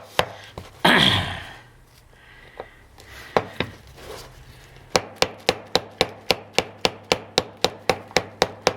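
Soft-blow hammer tapping the end of a screwdriver in quick light strikes, about four a second, to work a stuck, damaged flathead screw loose while it is turned. A short louder rattle comes about a second in, then a lull of a few seconds before the steady tapping resumes.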